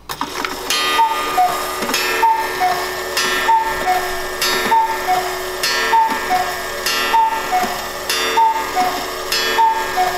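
Cuckoo clock calling the hour through its bellows-driven pipes: a repeated two-note "cuck-oo", higher note then lower, about once a second, each call starting with a click of the mechanism. Both notes sound, the sign that the replaced bellows are working again after one broken bellows had left it sounding only one note.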